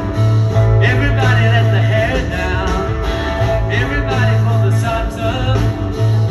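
Live rock band in an arena, with electric guitars, a deep bass line and a male singing voice, recorded from the audience.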